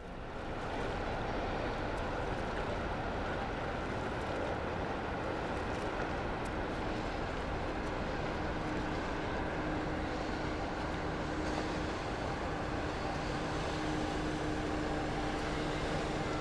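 Great Lakes freighter Mesabi Miner passing close: a steady, even drone of the ship's engines and machinery, with a faint low hum that grows clearer in the second half.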